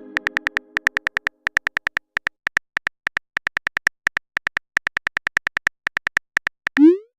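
Phone keyboard tap sound effects clicking in quick runs as a text message is typed out. A chime from the previous message fades out in the first second, and a short rising pop comes near the end.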